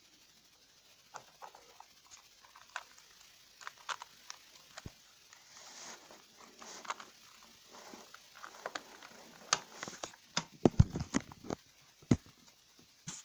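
Plastic 2x2 puzzle cube being turned quickly by hand: irregular clicks and short scrapes as the layers snap round. They come thicker and louder about ten seconds in, with a few heavier knocks.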